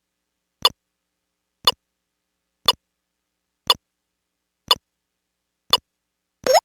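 Electronic sound effects from a VTech Alphabert robot toy: six short ticks, about one a second, then a quick rising blip just before the end.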